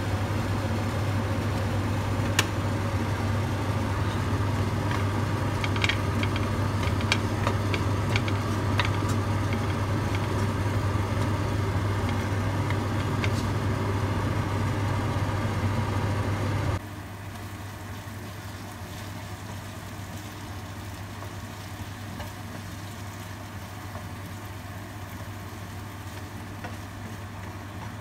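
Kimchi and onion frying in a nonstick wok over a steady low hum, with scattered light clicks of a wooden spatula against the pan. A little past halfway the whole sound drops suddenly to a quieter level.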